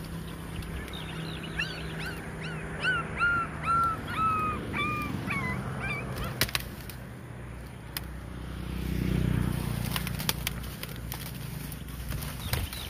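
Young abandoned puppies crying: about a dozen short, high squealing cries in quick succession, then scattered clicks and rustling.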